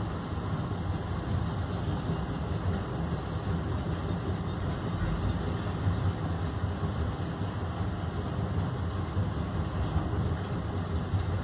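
Heavy diesel machinery running steadily at a stone-crushing yard: a low, even engine rumble with a noisy hiss above it.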